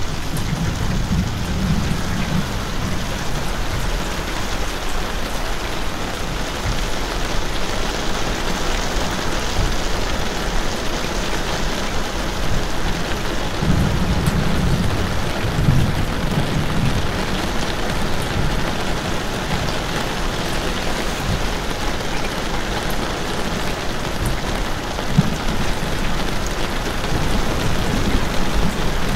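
Steady rain falling hard on surfaces, an even hiss throughout. A deep low rumble swells under it near the start and again about halfway through.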